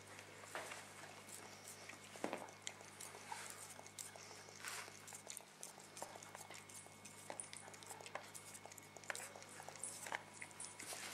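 Cat licking and chewing an ice cream cone: faint, irregular wet smacking and small clicks.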